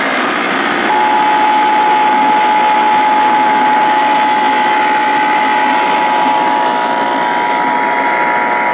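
Emergency Alert System two-tone attention signal, a steady held tone that begins about a second in, heard over a radio receiver under heavy static hiss; it announces a Required Monthly Test.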